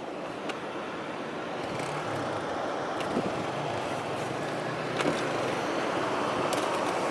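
Predator 500 sport quad's engine running during a test ride, slowly growing louder, under a steady rushing haze.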